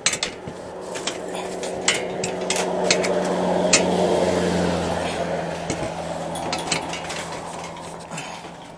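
A low mechanical hum that grows louder over the first few seconds and then fades, with scattered light metallic clinks and rattles throughout.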